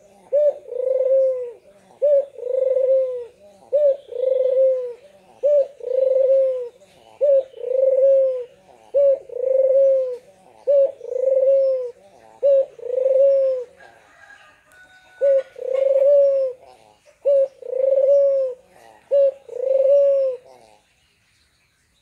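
Barbary dove (puter) cooing over and over: each coo is a short note followed by a longer, drawn-out one, repeated about every second and a half, with one pause about two-thirds of the way in and a stop just before the end.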